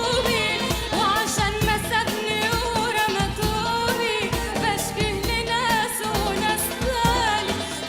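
A singer's voice carrying an ornamented, wavering melody over instrumental backing with a steady beat.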